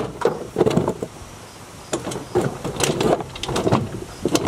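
Irregular knocks, clatter and rustling of assorted items being handled and moved about in a storage unit.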